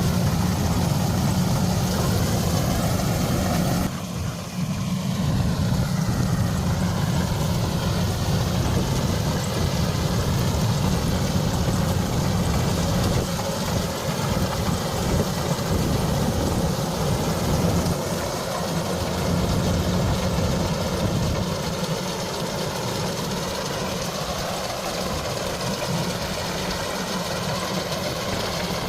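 Heavy farm-machinery diesel engine running steadily at a low idle-like pace, with a short drop in level about four seconds in.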